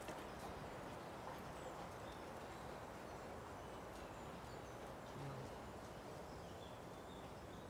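Quiet outdoor ambience: a steady low hiss with faint scattered high chirps and small clicks, and a brief low hum about five seconds in.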